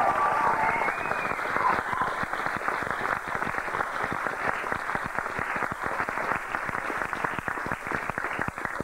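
Audience applauding: many hands clapping steadily, with a brief call or cheer in the first second.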